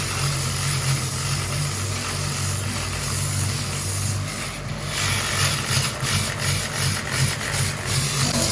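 An engine or motor running steadily with a low hum. From about five seconds in, a string of short sharp knocks sounds over it, roughly three a second.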